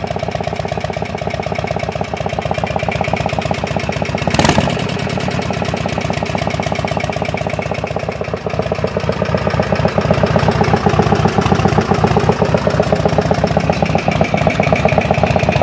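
A 2000 Yamaha Road Star 1600's V-twin engine running at idle with a rapid, even pulsing, with a single sharp crack about four seconds in. The owner says it still sounds nasty after the engine lost power with a loud bang, and the cause is not known.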